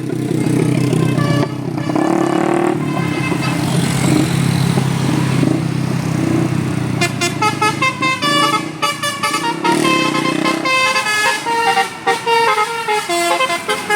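A bus's telolet basuri musical horn playing a quick melody of short stepped notes, starting about halfway through, over a low steady drone.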